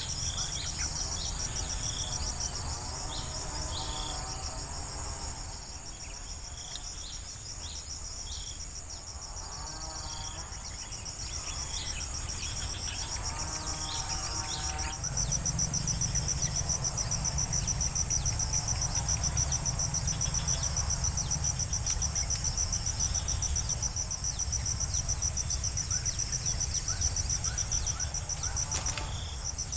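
An insect, cricket or cicada type, keeps up a steady high-pitched trill that stops for about five seconds and then starts again. Faint short bird chirps sound beneath it.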